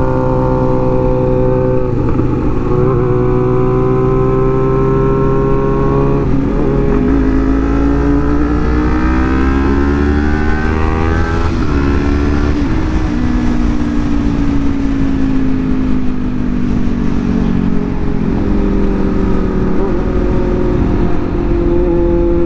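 Sport motorcycle engine running loud at road speed, its pitch climbing and falling with throttle and gear changes several times, over a steady rush of wind.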